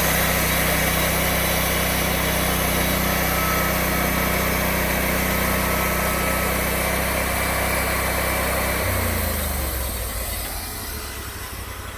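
Sawmill engine running steadily at high speed, then throttled down about nine seconds in and settling to a lower idle.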